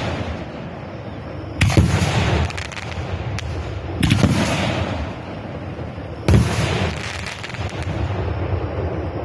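A 25-shot 2.5-inch firework cake firing its last shells: three loud bangs about two and a half seconds apart, each trailing off in a hissing crackle. The bangs stop about two-thirds of the way in, leaving only a steady background hiss.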